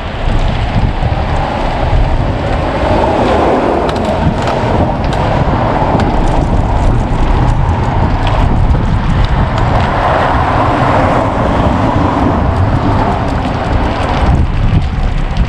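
Wind buffeting the microphone while riding along, a heavy rumble with a rushing road noise over it that swells about three seconds in and again about ten seconds in.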